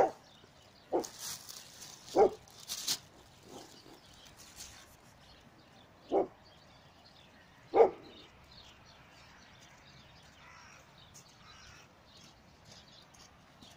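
A dog barking, about six short single barks spread over the first eight seconds.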